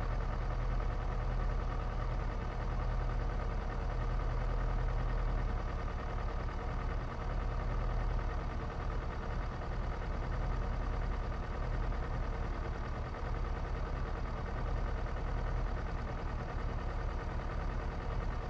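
Kawasaki Ninja 250's parallel-twin engine idling steadily, with no revving.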